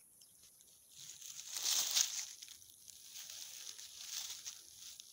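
Dry leaves and grass rustling and crackling as a kitten squirms on the ground under a hand, loudest about two seconds in and then softer, scattered crackles.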